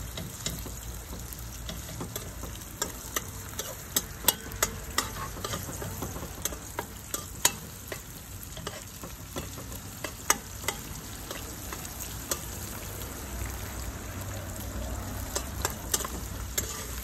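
Sliced garlic sizzling in hot oil in a nonstick wok while a metal spoon stirs it, with sharp irregular taps and scrapes of the spoon against the pan. The garlic is being fried until just golden and fragrant.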